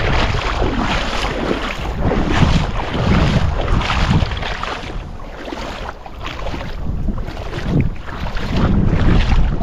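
Wind buffeting the microphone, a loud rushing rumble that rises and falls in gusts.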